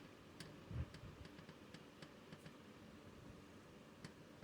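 Near silence with a few faint, scattered metallic clicks and one soft thump: vise grips being worked on a broken exhaust stud in a GY6 engine's cylinder head, twisting it loose.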